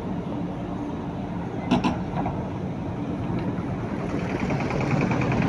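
Caterpillar 312 excavator's diesel engine running steadily, with a sharp knock about two seconds in and a fast, even ticking that starts near the end as the sound grows slightly louder.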